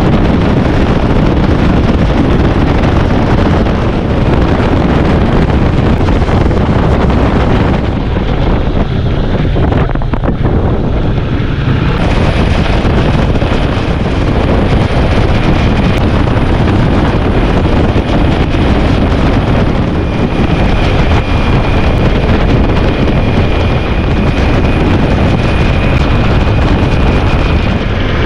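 Heavy, steady wind noise on the microphone while riding a motorcycle, with the sound of the ride underneath.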